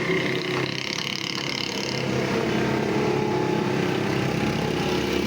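A motor running steadily with a humming drone of several held tones, its sound shifting about two seconds in.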